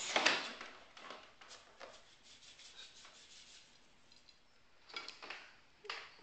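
Candy sprinkles rattling in a small plastic shaker tube as it is shaken over a cake, loudest just at the start, with further short shakes after.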